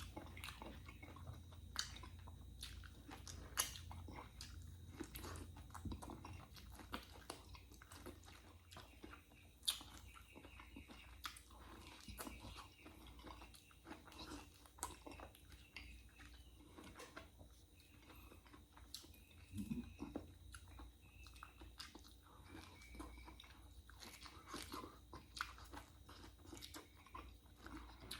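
A person eating close to the microphone: quiet chewing and crunchy bites, with irregular sharp clicks and smacks throughout.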